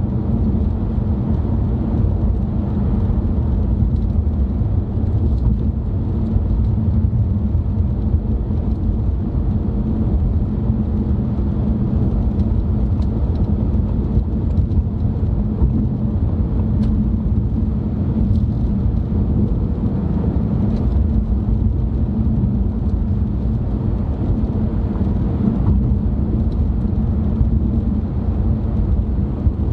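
A car driving at a steady speed, heard from inside the cabin: a constant low rumble of road and engine noise.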